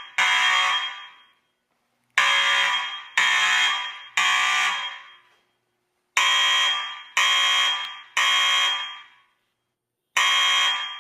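Building fire alarm sounding in the temporal-three evacuation pattern: groups of three loud blasts a second apart, each starting sharply and fading, followed by a short pause, repeating every four seconds.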